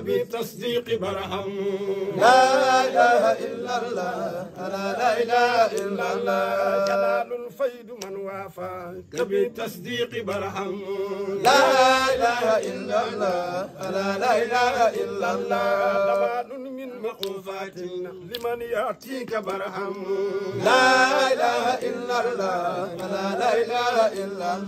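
A man's voice chanting devotional verse unaccompanied, in long melodic phrases that swell louder about every nine seconds.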